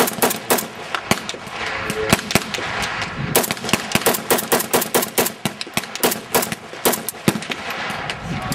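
Rapid gunfire: many sharp rifle shots, several a second, unevenly spaced and differing in loudness, with no let-up.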